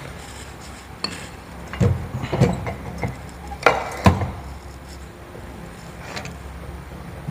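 Handling noise picked up by a clip-on wireless microphone: a string of knocks and rubs as the phone and the mic on the shirt collar are moved about, loudest between about two and four seconds in, over a low steady hum.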